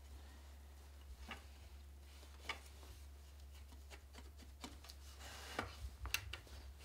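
Faint rustling and a handful of light clicks as hands work a fabric-strip weft through the warp threads on a wooden frame loom, with a steady low hum underneath.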